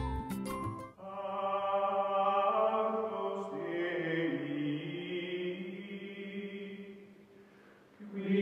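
Outro music. A quick chiming tune ends about a second in, then a choir-like chant of long held chords takes over, fades away near the end, and starts again just before the end.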